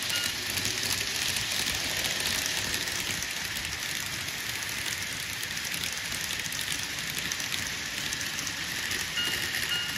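Model trains running on the layout's track: a steady rattling hiss of small wheels and motors, dense with fine clicking.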